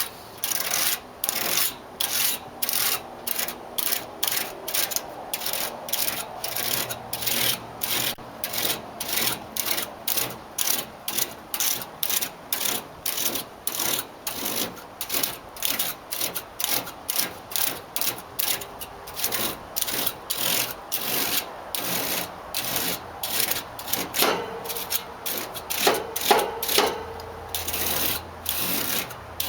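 A piece of fine-tooth plastic comb scraping through an A/C condenser's thin cooling fins in quick, regular strokes, about two a second, straightening the bent fins. A few brief squeaks come in near the end.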